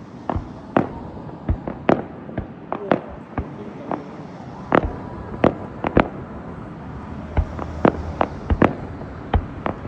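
Fireworks going off in quick, irregular succession: sharp bangs about two or three a second over a continuous low rumble.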